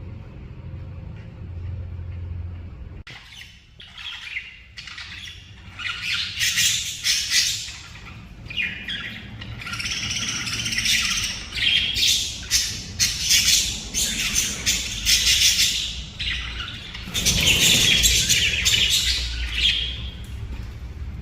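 African lovebirds chattering and screeching in rapid runs of shrill calls, starting a few seconds in and loudest near the end.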